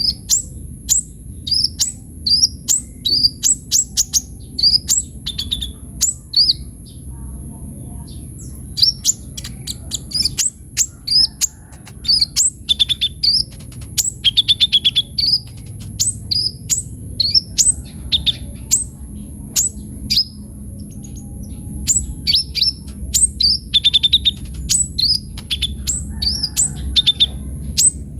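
Sunbird (kolibri ninja) singing vigorously: rapid runs of short, sharp, high chirps and notes broken by brief pauses, over a faint steady high-pitched tone and low background rumble.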